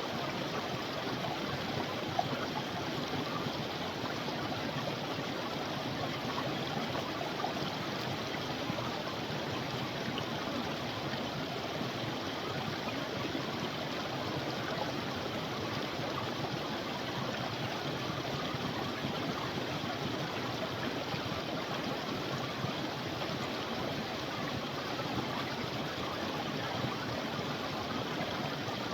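Creek water running steadily, an even rushing without let-up.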